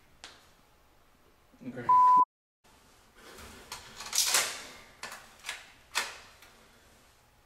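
A brief voice fragment is cut off by a short, loud, steady bleep tone about two seconds in. After a moment of dead silence comes a series of sharp clicks and clacks from a handgun being handled and its slide worked; the loudest comes a little after four seconds.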